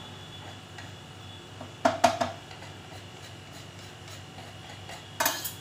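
Wooden rolling board knocking against the rim of a steel mixer-grinder jar while crushed black pepper is scraped off it into the jar: a pair of sharp knocks about two seconds in and a louder clatter near the end.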